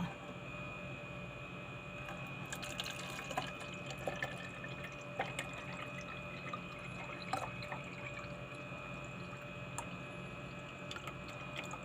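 Faint drips of liquid and small scattered clicks over a steady electrical hum.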